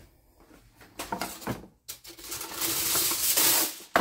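Plastic cling wrap being pulled off its roll: a few rustles and clicks, then a steady rasping pull of about two seconds, and a sharp click near the end.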